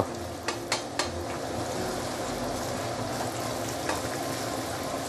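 Whitebait frying in oil in a stainless-steel pan, a steady sizzle as it is stirred with a wooden spatula, with a few light clicks in the first second. The hot oil is forcing the water out of the little fish, which are not yet crisp.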